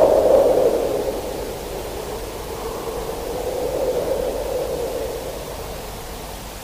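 The end of a lo-fi black metal rehearsal tape: a noisy, distorted sustain dies away, leaving steady tape hiss.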